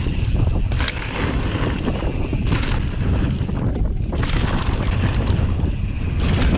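Wind rushing over the camera microphone with the rumble of a mountain bike rolling fast down a dirt trail, with a few brief rattles from the bike over bumps.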